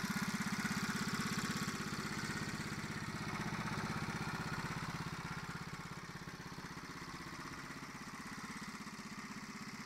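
Honda Z50M Monkey's small 49 cc four-stroke single-cylinder engine idling steadily, getting quieter about halfway through.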